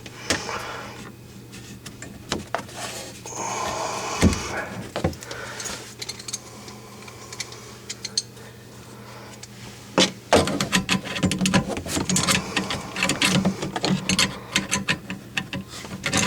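Metal clicks and scrapes of a wrench working the compression nut of a dishwasher's water supply line as it is tightened toward snug. Two sharp knocks come around the fourth and fifth seconds, and the clicking turns rapid and dense from about ten seconds in, over a steady low hum.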